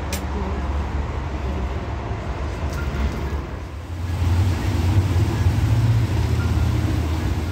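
Road traffic noise from passing cars, a steady low rumble that grows louder about four seconds in.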